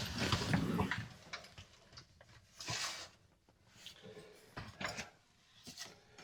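Tools and other items being handled and moved around: scattered knocks, clicks and rattles, with a brief scrape or rustle about three seconds in.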